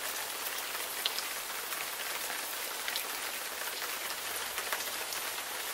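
Rain sound effect: a steady hiss of falling rain with scattered drop ticks.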